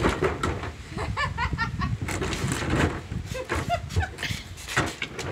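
Wheeled plastic garbage bins being dragged and shoved across an asphalt driveway, a rough rumble with scattered knocks. A woman laughs about a second in.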